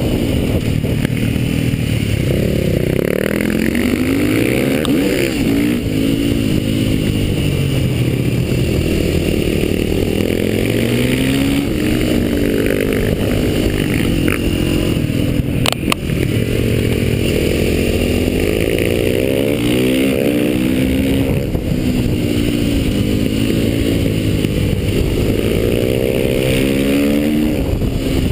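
Onboard sound of a KTM motorcycle engine ridden hard on track: the revs climb and fall again and again through the gears and corners, over steady wind rush on the microphone, with one sharp click about sixteen seconds in.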